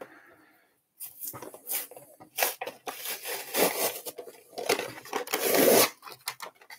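Cardboard backing of a Pokémon trading-card blister pack being torn open by hand, with the plastic blister rustling. It is a string of short rips and rustles, ending in a longer, louder rip about five seconds in.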